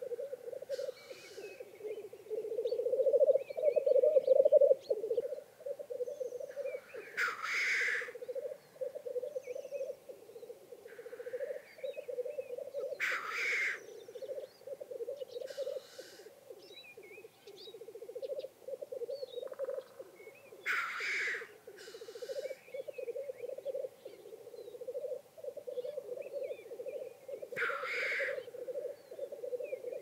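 Lekking male black grouse: a continuous rhythmic bubbling coo, with a loud hissing 'sneeze' call cutting in four times, about every seven seconds. Faint short chirps between them.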